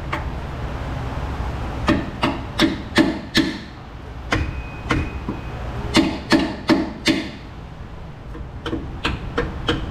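Dead-blow rubber mallet striking a steel mounting bolt, driving it through the front differential mount. About a dozen sharp blows come in three or four quick bursts, starting about two seconds in.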